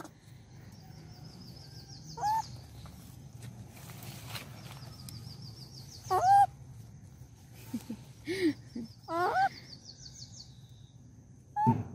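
Four short, clear animal calls spread apart, each rising and falling in pitch, with faint high bird chirps in the background.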